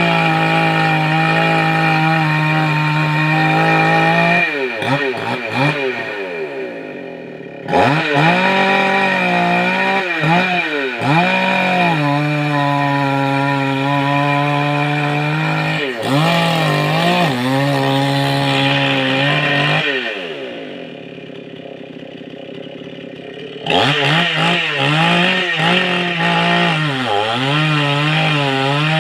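Chainsaw cutting mango wood, its engine running at high revs. The pitch sags and recovers several times as the chain bites. Past the middle it drops to a quieter, lower running for a few seconds, then revs back up near the end.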